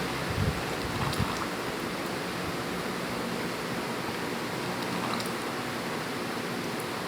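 Steady rush of seawater from waves and a wave-driven spout, with a few low thumps in the first second or so.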